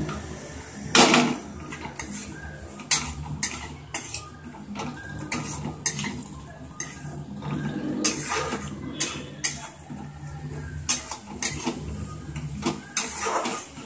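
Steel spatula scraping and clacking against a kadai while stirring thick masala paste, in irregular strokes, with a louder knock about a second in.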